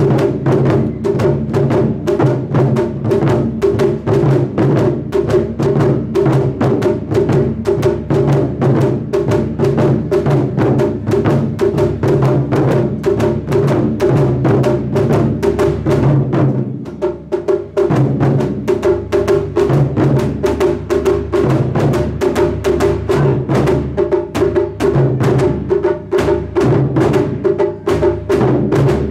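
A taiko ensemble beating nagado-daiko barrel drums in a fast, dense rhythm of heavy strikes. The level drops briefly about seventeen seconds in, then the full drumming resumes.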